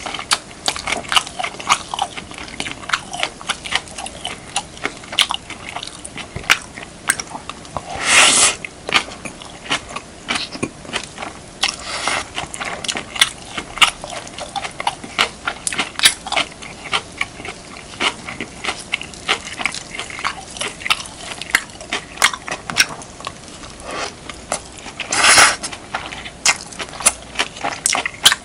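Close-miked eating of beef, kimchi and rice: a dense run of short, wet chewing and mouth clicks with crunches, and two louder, longer bursts of noise, about eight seconds in and near the end.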